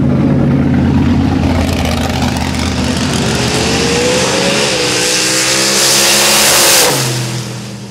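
Drag-racing pickup truck at full throttle as it launches down the strip. The engine note climbs steadily, with a step in pitch about halfway through as it shifts, then drops away sharply near the end.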